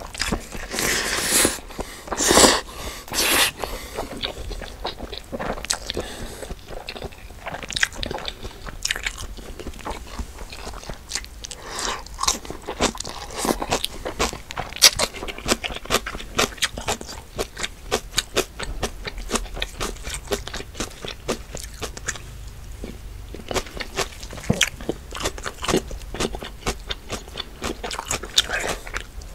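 Close-miked eating: a person chewing and biting into crunchy food, with many sharp crunches and a few louder, longer bursts in the first few seconds.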